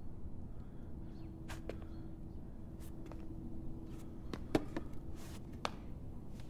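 Scattered light clicks and knocks in a quiet room, the sharpest about four and a half seconds in, over a faint steady hum.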